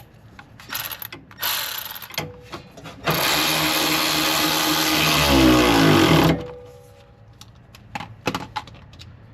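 Light metallic clicks and taps of hand tools working a sway bar end-link bolt. About three seconds in, a loud rushing noise with a low hum that sags and rises in pitch starts suddenly and cuts off about three seconds later.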